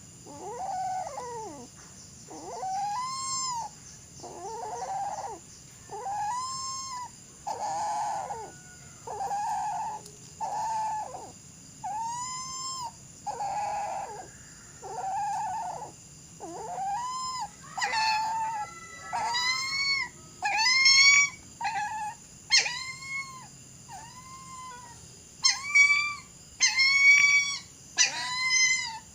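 A dog giving repeated high cries, each rising and falling in pitch, about one a second, getting louder near the end.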